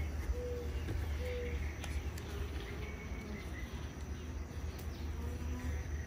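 Honey bees buzzing around an open hive, with short buzzes of single bees flying past near the microphone, over a steady low rumble.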